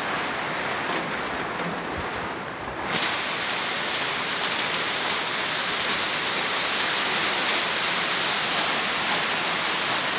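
Very heavy tropical downpour splashing onto floodwater, a dense steady hiss. About three seconds in it turns louder and hissier.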